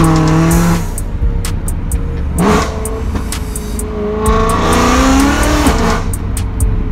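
Straight-piped BMW E93 M3's S65 V8 heard from inside the cabin, revs rising and falling through gear changes, with a sharp rev blip about two and a half seconds in and a longer climb before falling again near the end.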